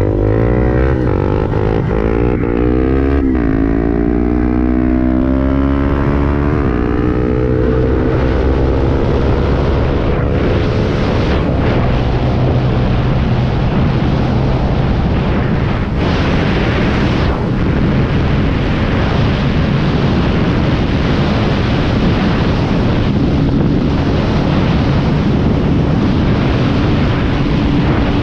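Honda CB300 single-cylinder motorcycle engine under full throttle, climbing in pitch and dropping back at several quick upshifts in the first few seconds. From about eight seconds in, at high road speed, rushing wind on the microphone largely covers the engine as it holds steady near top speed.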